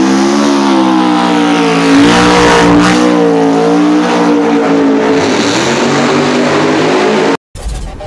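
Twin-turbo 528 cubic inch billet Hemi in a drag-race Dodge Challenger Hellcat, running very loud at high, fairly steady revs as the car leaves the line in tyre smoke. The engine sound cuts off suddenly about seven and a half seconds in, and intro music follows.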